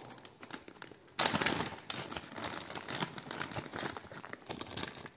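Clear plastic bag around a wax melt crinkling as it is opened and handled. The crackling is soft at first, turns suddenly loud about a second in, runs on densely and irregularly, and stops abruptly near the end.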